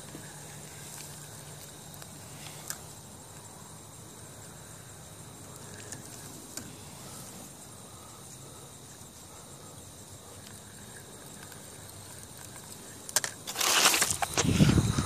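Quiet outdoor background with a few faint clicks, then about thirteen seconds in a loud, rough rumbling and rustling noise on the microphone that carries on to the end.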